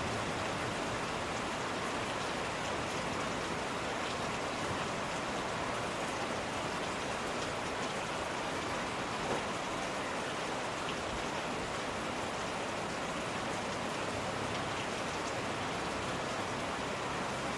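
Steady rain falling, an even hiss with no change in strength, broken once by a brief tap about nine seconds in.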